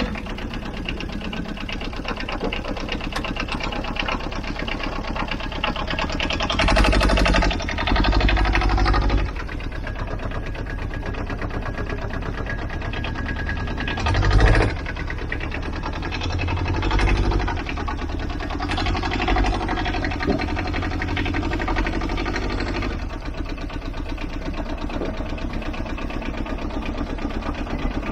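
Aixam Mega Multitruck's small Kubota two-cylinder diesel running, mostly at idle with a rapid even beat, revving up briefly a few times while the van is driven and turned, loudest about fourteen seconds in.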